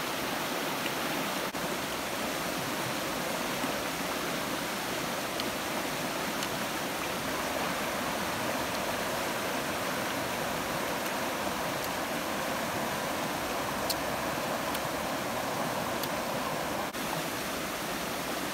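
Fast-flowing, muddy river rushing over rocky rapids: a steady, even wash of water noise.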